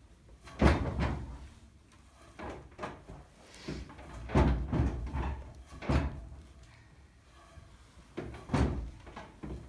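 Irregular soft thumps and rustling, a handful of short bouts, as a green leg wrap is wound over white padding around a horse's lower leg.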